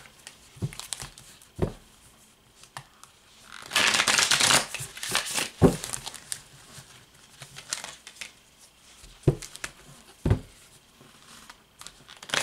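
A deck of round tarot cards being shuffled by hand: papery rustling of the cards, with a longer, denser burst of shuffling about four seconds in and a few short soft knocks.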